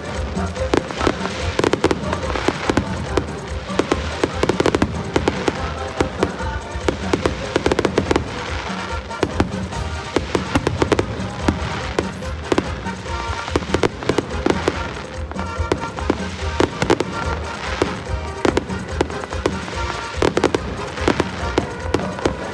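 Aerial fireworks going off in quick succession, a dense run of sharp bangs and crackles with hardly a gap, over music playing through the show's sound system.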